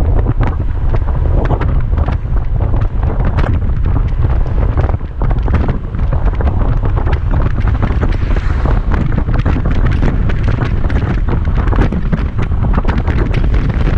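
Heavy wind buffeting the microphone of a moving motor scooter: a loud, steady rumble with frequent crackles that buries any engine sound.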